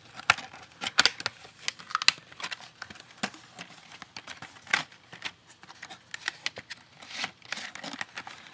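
Plastic pen packaging crinkling and tearing as it is opened, in sharp, irregular crackles and short rustles.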